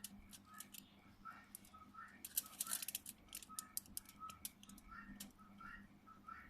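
Faint, irregular light clicks and ticks of small tools and wires being handled during hand soldering of a phone's wiring, with some clicks coming in quick clusters.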